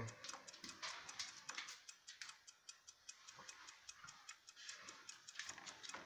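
Faint, quick, even ticking of a 1970 Schatz mantel clock's platform escapement running, several ticks a second.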